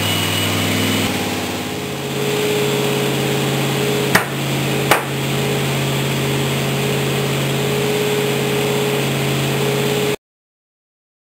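A 383-cubic-inch stroker Holden V8, fed by a Holley 750 double-pumper carburettor, running steadily on an engine dyno after a power pull, its pitch dropping slightly about a second in. Two sharp cracks come about a second apart near the middle, and the sound cuts off suddenly near the end.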